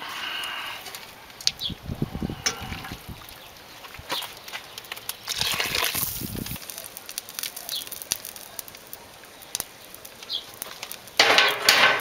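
The pan's fried vegetable base, rinsed out with broth, is poured into a large steel stockpot of borscht. The liquid pours and splashes, loudest about halfway through, with a louder clatter of pan or ladle near the end.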